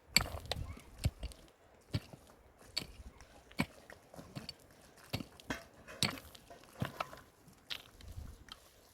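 A series of sharp knocks and clicks at an uneven pace, about two or three a second, some louder than others.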